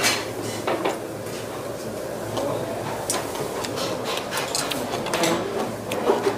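Close-miked eating: chewing, with metal chopsticks clicking against a metal bowl as the noodles are picked at and stirred, in many short irregular clicks.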